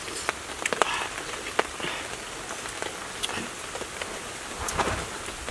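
A person eating with his fingers, chewing and smacking his lips: irregular small wet clicks over a steady outdoor hiss.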